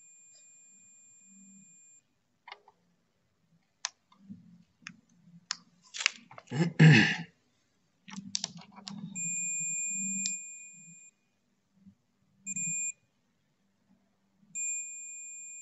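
Digital multimeter in diode mode beeping with a steady high tone while the probes touch a line shorted to ground. There is a beep at the start, a longer one past the middle, a short blip, and another starting near the end. Between them come a run of clicks and one loud brief rustle from handling the probes and board.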